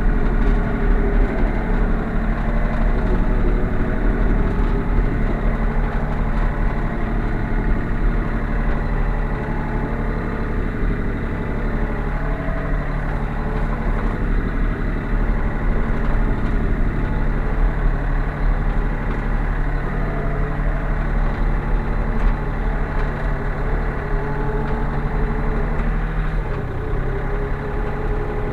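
Sany SY35U mini excavator's diesel engine idling steadily after a cold start, heard from inside the cab. Its note shifts slightly near the end.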